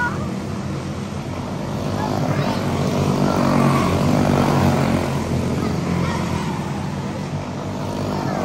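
Quarter midget race cars' Briggs & Stratton Animal single-cylinder engines running under race power, the sound swelling and easing in loudness every few seconds.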